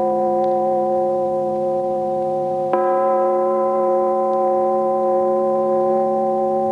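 Instrumental music holding one long, steady chord, with a fresh attack about two and a half seconds in that brings in higher notes.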